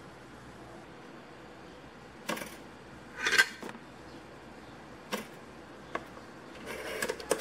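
Bread slices being put into a plastic pop-up toaster: a soft scrape about three seconds in, a few light clicks and knocks, and a quick run of clicks near the end.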